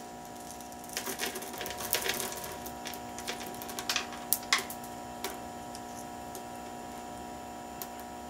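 Expanded clay pebbles (hydroton) clicking and rattling as they are dropped by hand into a plastic net pot around a lettuce seedling: a run of light clicks over the first five seconds or so, one more near the end. A steady hum sounds underneath.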